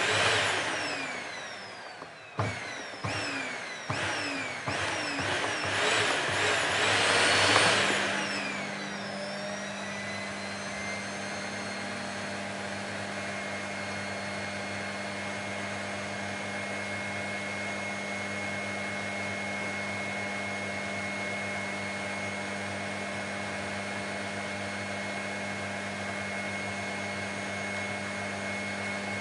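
Vacuum cleaner motor starting suddenly and surging unevenly for about eight seconds, with a string of falling whines. It then settles into a steady run with a constant hum and a thin high whine.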